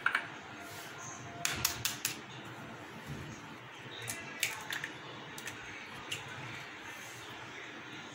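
Short, sharp clicks and taps at a glass mixing bowl, in a couple of quick clusters and a few single ones, as eggs are cracked into a well of flour.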